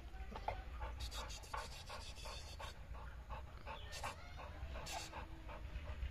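Red-nose pit bull panting with its mouth open, quick short breaths about three or four a second.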